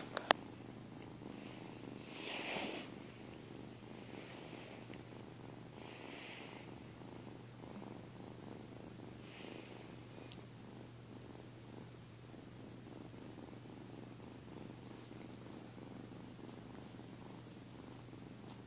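Cat purring steadily close to the microphone. Two sharp clicks come right at the start, and a few short, soft rustling noises follow, the loudest about two and a half seconds in.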